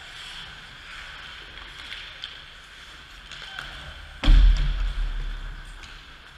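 Skate blades scraping and sticks clicking on the ice of an indoor hockey rink. About four seconds in comes a loud thud close to the camera, with a low boom that dies away over about a second.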